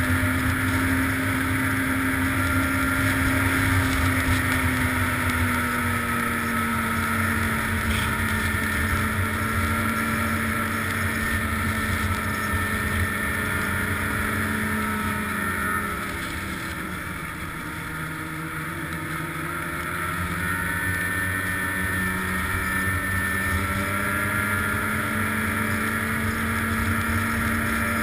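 Snowmobile engine running at steady trail speed. About halfway through it eases off, dropping in pitch and loudness, then picks up again a few seconds later.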